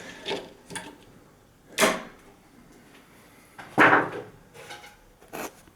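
Clicks and knocks of a battery pack being fitted into a wireless outdoor alarm siren's housing: a sharp click about two seconds in, a louder knock about four seconds in, and lighter taps around them.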